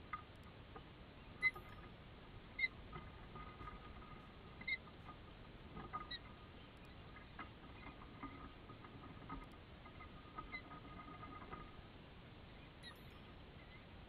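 Ospreys at the nest giving a few short, high chirps, most of them in the first half, over a faint steady hiss.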